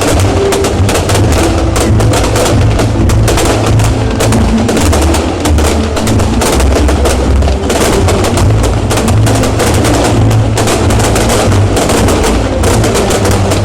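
Fireworks going off in a dense, rapid barrage of cracks and bangs over a continuous low rumble, loud throughout.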